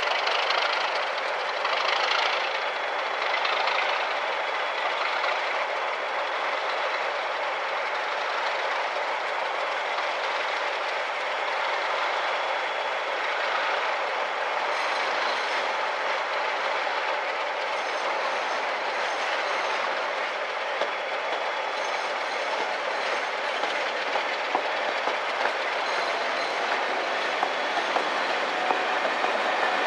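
Push-pull passenger train passing: a line of Mk2 coaches propelled by a Class 37 diesel locomotive working at the rear, a steady rumble throughout. From about halfway through, wheels click over rail joints as the coaches draw level, the clicks growing more frequent near the end.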